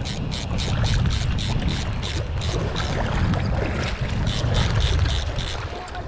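Fly reel's click-and-pawl ratcheting in even clicks, about four a second, as line is wound in on a hooked rainbow trout; the clicking stops near the end. Under it runs a steady low rush of river water and wind on the microphone.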